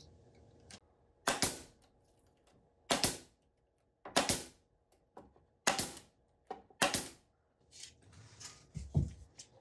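Pneumatic nailer firing nails into plywood joints, about five sharp shots roughly a second apart with a few softer knocks between.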